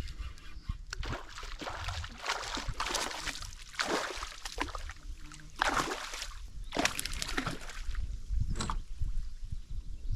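Water splashing and sloshing in a series of swishes, about one a second, over a low rumble.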